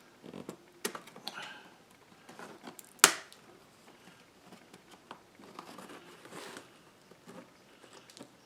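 Sharp plastic clicks and light scraping as a knife pries around the edge of a computer keyboard, with one loud snap about three seconds in.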